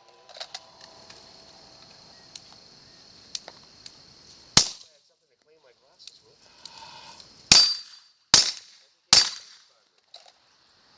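Pistol shots: a single shot about four and a half seconds in, then three more in quick succession, each under a second apart, near the end.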